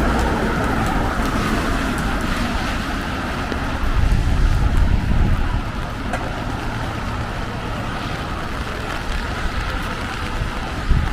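City road traffic on a rainy night: a steady hiss of tyres and rain, with a louder low rumble as a vehicle passes about four seconds in, and a short knock near the end.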